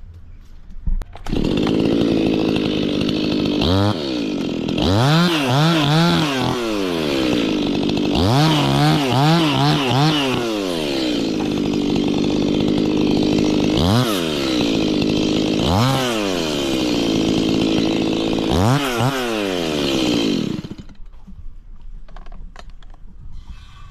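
Two-stroke chainsaw running at high speed, its pitch dropping and climbing back several times as the chain loads in the cut, then shutting off near the end.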